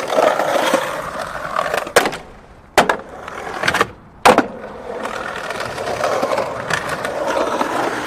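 AI-generated skateboard sound effect from HunyuanVideo-Foley: wheels rolling and scraping on concrete, broken by several sharp clacks of the board hitting the ground. The loudest clack, about four seconds in, is the board landing.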